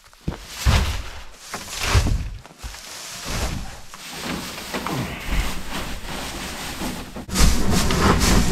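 Loose straw being pulled from a bale and packed into a plastic-walled dog house, rustling and crunching in a series of swishes that grow louder and busier near the end.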